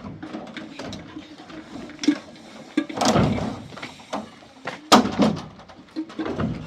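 Several separate knocks and thumps, the loudest a sharp knock about five seconds in, with a longer scraping thump a little before it.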